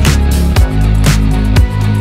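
Electronic background music with a steady beat, about two strong hits a second over a deep bass line.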